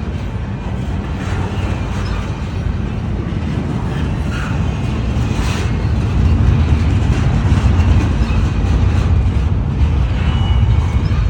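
Long freight train rolling slowly past: a steady low rumble of the cars' wheels on the rails, with faint repeated clacks, growing somewhat louder about six seconds in.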